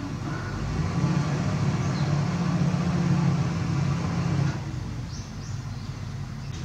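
A steady low motor hum that grows louder about a second in and cuts off sharply about four and a half seconds in.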